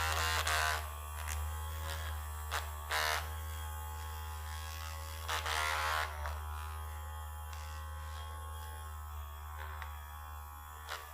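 Handheld electric vibrating massager buzzing steadily, with a few brief louder bursts of noise near the start, around three seconds in and around six seconds in.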